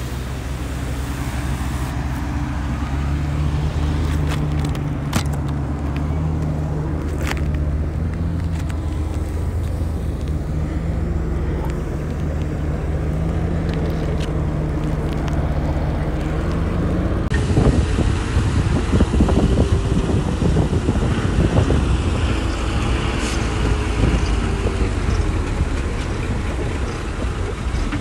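Diesel engine of heavy earthmoving machinery running steadily under load, with a few sharp knocks; its pitch rises slightly before the sound changes abruptly to a rougher engine mixed with frequent clanking knocks.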